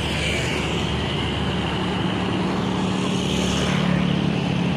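Road traffic passing, with a vehicle engine's steady drone that swells to its loudest about four seconds in.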